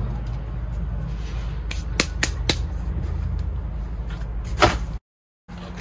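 A few sharp clicks and knocks from handling things on a work table: a quick group about two seconds in and a louder one near the end. They sit over a steady low rumble, and the sound cuts out for about half a second just before the end.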